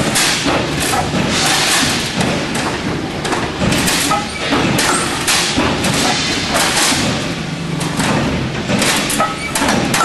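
Cable tray roll-forming machine running, a steel strip feeding through its forming rollers: a loud, dense clatter with frequent irregular knocks.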